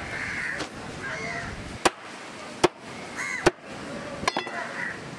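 A heavy knife chopping a trevally into pieces on a wooden block: four sharp chops, roughly one every second, in the second half. Crows caw in between.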